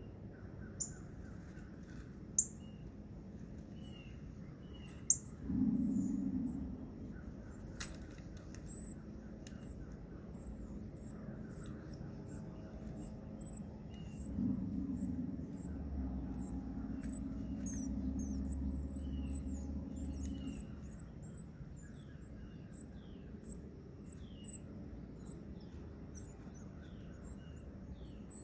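Wild birds chirping and calling: short, very high chirps repeated about twice a second, with lower downward-slurred calls among them. A low steady hum comes in for a few seconds near 6 s and again for about six seconds midway.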